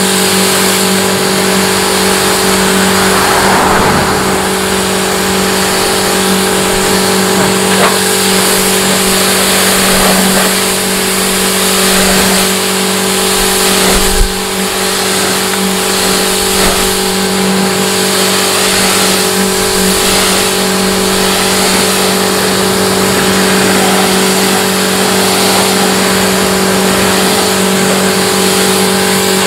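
A machine motor running steadily with a constant hum over a loud, even hiss, with a few short clicks.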